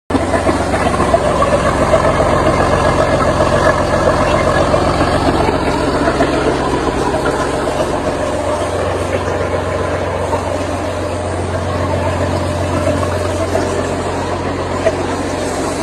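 Caterpillar 3306T turbocharged inline-six diesel engine running steadily on a test stand, a constant low hum under a dense mechanical clatter.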